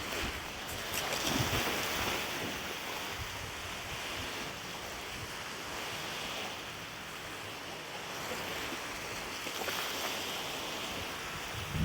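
Wind blowing with lake waves washing steadily, swelling and fading. Gusts rumble on the microphone about a second in and again near the end.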